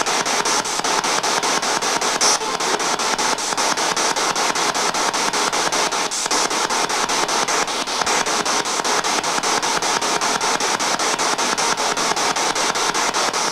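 Spirit box sweeping through radio stations: a steady hiss of static chopped by rapid, even clicks several times a second, with a brief louder crackle about two seconds in.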